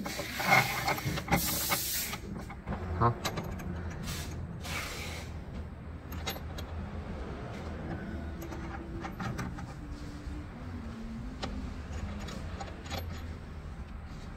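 A long steel bolt scraping as it is pushed through the holes of a steel rowing-machine frame, in two rough bursts, followed by scattered small metallic clicks from handling a washer and nut. A steady low hum runs underneath.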